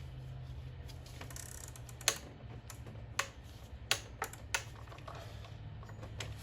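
A handful of sharp, irregular clicks and taps as the oil filter housing cap is tightened by hand with a tool, over a low steady hum.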